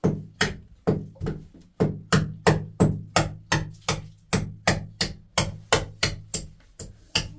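Steady hammering: a hammer knocking a nail into a wooden ceiling beam to fix a sheet in place, about three blows a second, each a short knock that dies away quickly.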